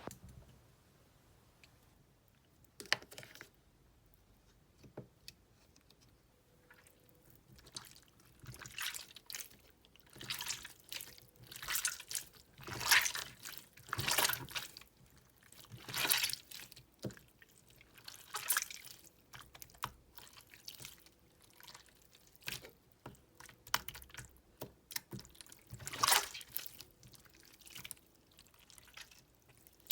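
Yellow jelly slime mixed with water being squeezed and pressed by hand, giving irregular wet clicks and squelches, sparse at first and coming thicker and louder from about eight seconds in.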